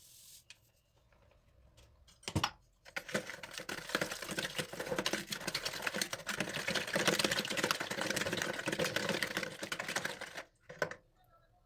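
Rapid scrubbing with many fast clicks for about seven and a half seconds, with a knock just before it starts and another just after it stops.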